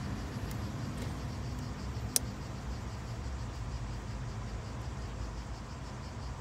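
Steady low rumble of background noise, with one sharp click about two seconds in as wires in the car door's wiring harness are handled.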